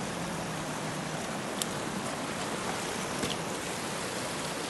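Steady, even hiss of rain and rain-fed runoff water rushing over rocks, with a couple of faint ticks.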